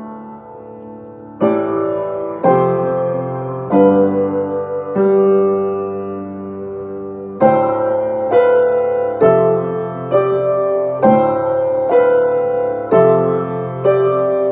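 Piano playing a slow run of chords, each struck and left to ring: softly at first, then louder chords, one held for a couple of seconds near the middle, and in the second half a chord about every second.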